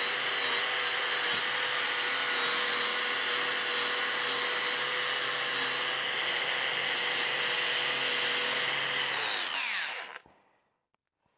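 Makita 40V XGT brushless angle grinder running steadily while grinding surface rust off a steel sheet. About nine seconds in it is switched off, and its whine falls in pitch as the disc spins down to silence.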